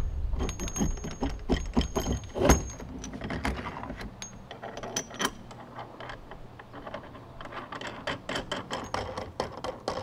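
A long steel bolt clinking and scraping as it is slid through the metal hubs of small pneumatic hand-truck wheels and a wooden post, with scattered metal clicks and knocks. One louder knock comes about two and a half seconds in.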